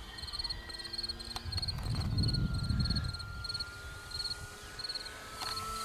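Crickets chirping in an even rhythm, about two chirps a second, over the faint thin whine of a distant RC airplane's motor holding a near-steady pitch. A low rumble of wind on the microphone swells about two seconds in and fades a second later.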